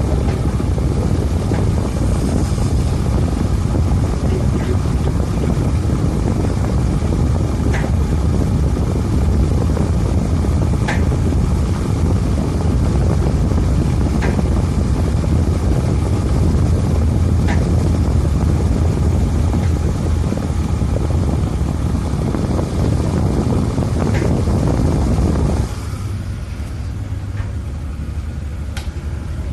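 Steady low rumble and rushing noise aboard a ship in a storm, with a faint tick about every three seconds. The noise drops suddenly to a quieter level about 26 seconds in.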